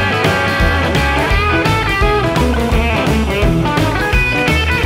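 Background music: a guitar-led instrumental track with a steady bass beat.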